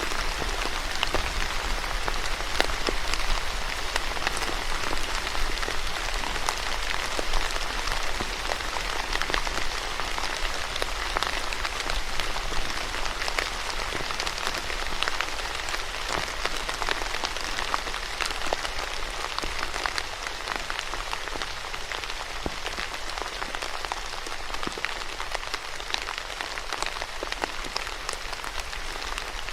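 Steady rain falling and pattering on a surface, a dense even hiss with many separate drop taps through it.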